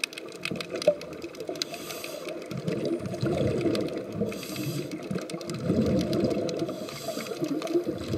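Scuba regulator breathing heard underwater: a short hiss of inhalation, then a long rumbling gurgle of exhaled bubbles, repeating about every two and a half seconds.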